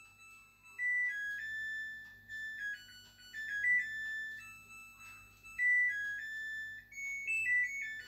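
Samsung front-loading washing machine playing its electronic melody, a tune of single clear beeping notes with short pauses between phrases.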